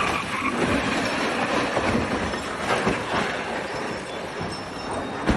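Sustained rough grinding and scraping from a car that has just crashed, with a few scattered knocks.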